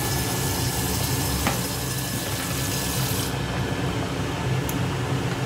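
Water poured from a plastic container into a pan of boiling tomato and okra sauce, a steady splashing hiss that stops about three seconds in. The sauce goes on bubbling at a rolling boil.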